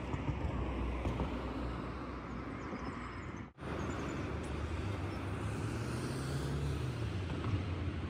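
Road traffic noise from cars passing, a steady rumble with a low engine hum swelling in the second half. The sound drops out for an instant about three and a half seconds in.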